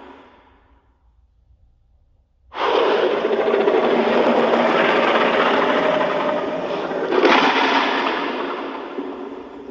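Godzilla's roar from the 2014 Legendary film, a film sound effect. The tail of one roar dies away, then about two and a half seconds in a new roar starts abruptly, swells into a second, louder push near the end, and fades out.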